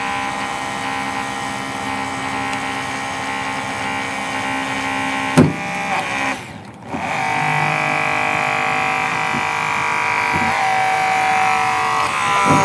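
Hydraulic rescue cutter running steadily as its blades crush a steel car door hinge, with a single sharp bang about five seconds in as the hinge steel snaps through. The motor sound then drops briefly and carries on at a slightly different pitch.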